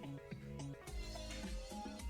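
Background music: a melody of stepping notes, with a bass and a beat coming in about a second in.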